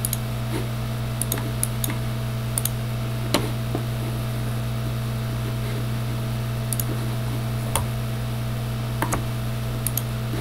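Scattered clicks of a computer mouse, a dozen or so, the loudest about a third of the way in, over a steady low electrical hum.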